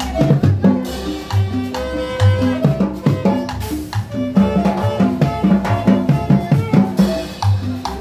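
Live band with saxophones, drums and cymbals playing upbeat dance music with a steady beat and a bass line.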